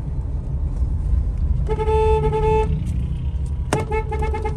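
Vehicle engine rumbling steadily, with a car horn honking twice: a toot of about a second roughly two seconds in, then a shorter one near the end that starts with a sharp click.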